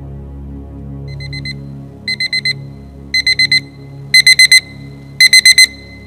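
Digital alarm clock beeping: groups of short, rapid high beeps about once a second, starting faintly about a second in and growing louder with each group. Soft, sustained background music plays underneath.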